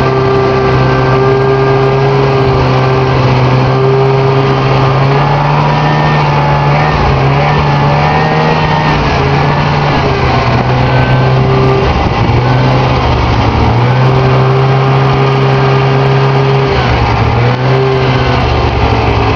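Snowmobile engine running steadily under way, heard from the rider's seat, its note rising and dipping a little a few times.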